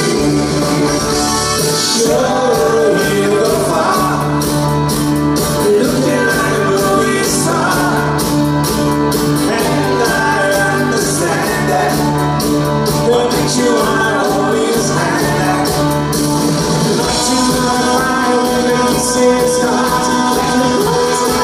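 Live pop-rock band playing a song, guitars, keyboards and drums with a man singing lead, heard from the audience in a large hall.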